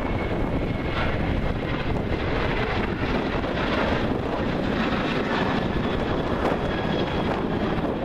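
Boeing 737 jet airliner taking off, its twin CFM56 turbofans at takeoff thrust giving a steady rumble with a faint high whine, mixed with wind buffeting the microphone.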